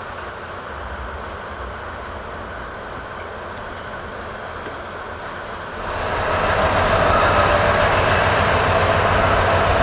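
A train running at a steady moderate level, then just before six seconds in the sound jumps abruptly to a louder, nearer train passing with a steady whine.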